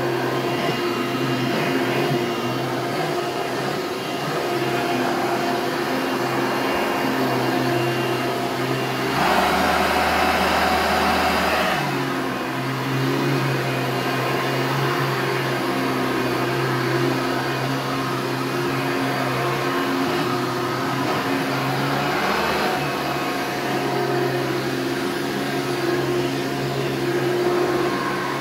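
Hoover Turbo Power 2000 vacuum cleaner running steadily, with a motor hum and a faint whistle that the owner suspects may come from the bearings. About nine seconds in it grows louder and rougher for roughly three seconds, then settles back.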